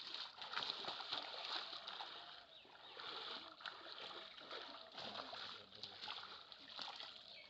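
Water splashing and sloshing continuously, rising and falling in loudness.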